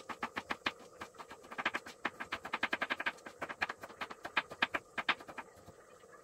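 Kitchen knife chopping garlic on a wooden cutting board: a quick, even run of knocks, about five a second, stopping about five seconds in.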